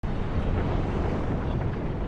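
Steady low rumbling of an active volcano, Mount Yasur, with a hiss on top.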